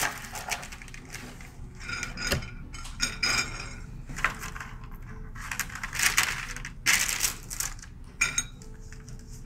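Dry pretzels being picked off a plate and set down on parchment paper: scattered light clicks and short paper rustles at an irregular pace.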